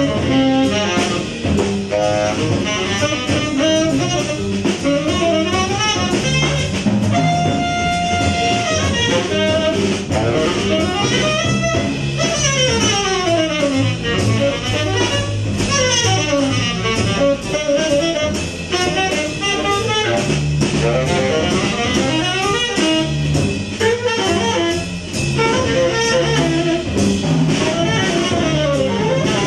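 Jazz saxophone solo over double bass and drum kit: the saxophone plays fast runs up and down, with a long held note about eight seconds in.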